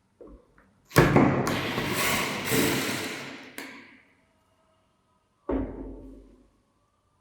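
Old metal parts of a hand-cranked grinder being handled: about three seconds of loud, rough scraping and rattling, then a single knock near the end that rings faintly as it dies away.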